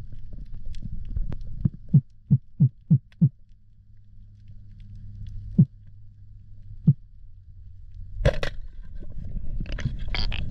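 Underwater sound with a low steady hum: a run of five dull thumps about two seconds in, then a single sharp crack about eight seconds in as a band-powered speargun fires, followed by clattering and scuffling as the shot plays out.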